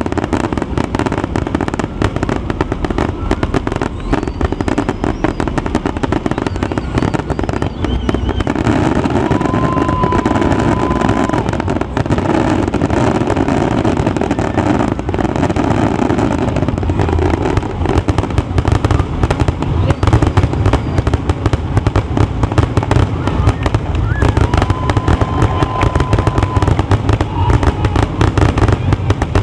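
Fireworks grand finale: a dense, unbroken barrage of bangs and crackling from many shells bursting at once, getting louder about two-thirds of the way through. A steady high whistle sounds twice, each time for about two seconds.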